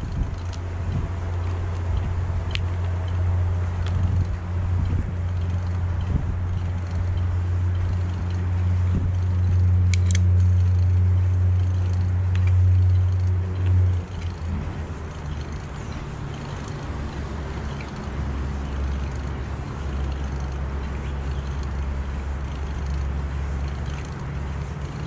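Steady low rumble of wind and tyre noise on a bicycle-mounted camera while riding. About fourteen seconds in the rumble drops lower and a little quieter, and there is one sharp click about ten seconds in.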